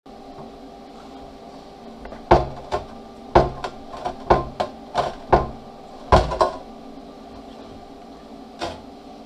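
Steel plate knocking and clanking as a freshly plasma-cut piece is worked loose and lifted from the sheet: about ten sharp knocks starting about two seconds in, one more near the end, over a steady faint hum.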